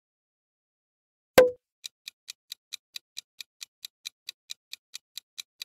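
Quiz countdown-timer sound effect: evenly spaced clock-like ticks, about four to five a second, starting about two seconds in. Just before the ticking, a single loud, sharp hit with a short low ring marks the change to the next question.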